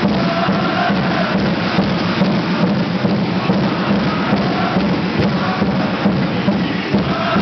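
Music with a steady quick beat.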